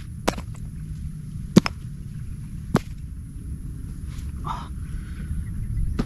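Rocks knocking sharply against one another as they are set down to ring a fire pit, a few separate clacks over a low steady rumble of nearby highway traffic.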